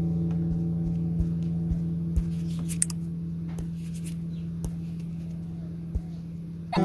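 Background music: a held chord lingering and slowly fading, with a few faint clicks.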